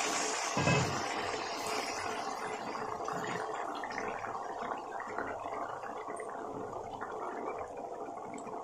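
Hot water bubbling and sizzling in a kadhai of oil-fried chana masala just after it has been poured in, slowly dying down.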